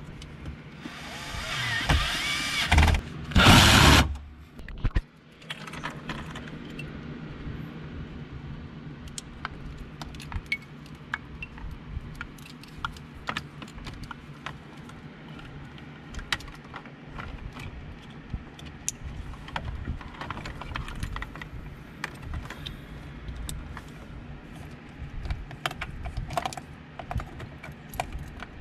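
Cordless drill/driver whirring on a screw in the dash, in a run from about one to three seconds in and a short, loudest burst just after. Then many small clicks and rattles of plastic wiring-harness connectors being handled and plugged together.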